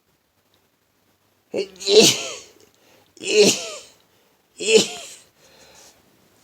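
A man sneezing three times in a rapid run, about a second and a half apart, each a short intake followed by a loud burst, with a faint breath after the last. The sneezing comes from a stopped-up, tickling nose.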